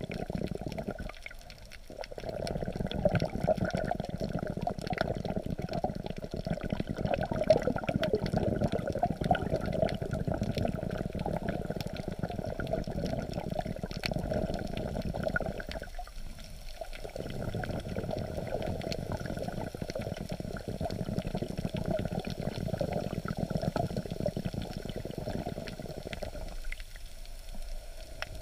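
Muffled underwater water noise heard from a camera held just under the sea surface: continuous sloshing and crackling as waves move the water and the camera, with brief lulls about a second and a half in, around the middle and near the end.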